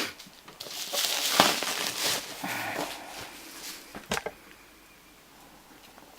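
Parcel packaging rustling and crinkling as it is unwrapped by hand, with a sharp knock right at the start and two short clicks about four seconds in.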